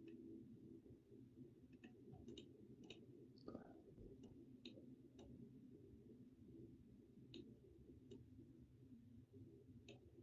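Faint computer mouse clicks, about ten scattered irregularly, over a low steady room hum.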